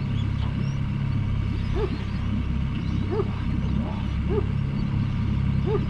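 Small outboard motor running steadily at low trolling speed, with a short animal call repeated five times, about once every second and a quarter.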